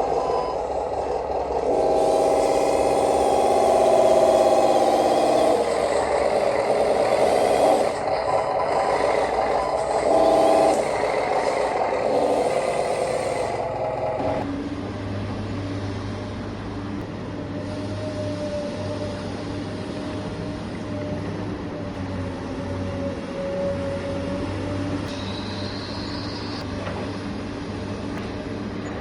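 Radio-controlled model construction machines working: electric motors and gearboxes whining, louder and shifting in pitch for the first half, then settling to a steadier, lower hum.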